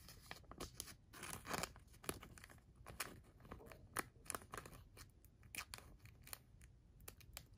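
Faint, irregular crackling and rustling of a thin clear plastic card sleeve as a thick jersey-patch hockey card is worked into it.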